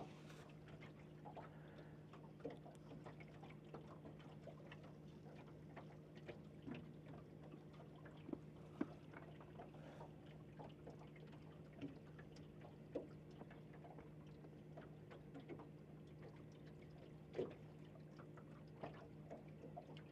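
Near silence: a faint, steady hum from a Minn Kota electric trolling motor, with soft water sounds and scattered small ticks and taps.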